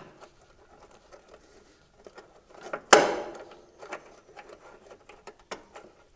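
Small metallic clicks and scrapes as a new brake hose end is fitted and threaded into its fitting behind the brake caliper, with one sharp clack about three seconds in.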